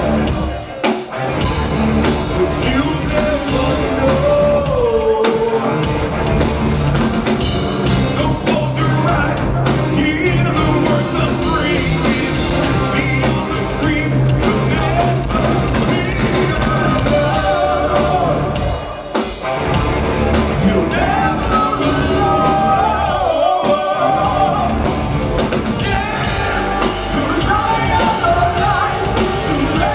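A heavy rock band playing loud and live: a male singer's vocal over drums, bass, double-neck electric guitar and keyboards.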